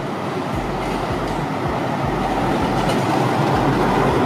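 Tram running past on its rails, its wheel-on-rail running noise growing steadily louder as it nears.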